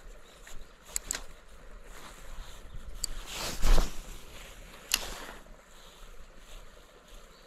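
A few light clicks from handling a spinning rod and reel, with one brief whoosh about three and a half seconds in, the loudest sound here.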